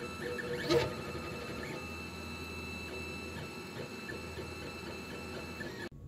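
Monoprice Select Mini V2 3D printer printing: a steady whir with several held whining tones from its stepper motors and cooling fan. About a second in, a louder burst of rising and falling motor tones marks a quick move of the head. The sound drops suddenly to a quieter level near the end.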